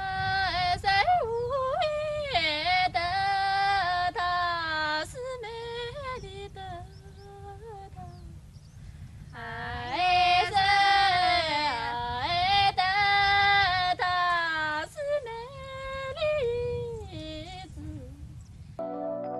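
A woman sings a folk song solo and unaccompanied in a high voice, holding long, wavering notes. There are two long phrases with a pause between them, then a few shorter ones, over a steady low rumble.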